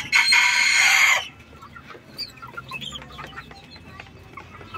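Young Ko Shamo chickens: one gives a loud, harsh call lasting just over a second at the start, then soft clucks and peeps from the flock.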